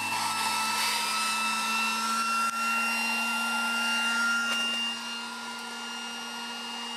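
A small electric blower running steadily: a whooshing rush of air with a thin high whine and a low hum, whose pitch creeps slightly upward. It eases off a little about five seconds in.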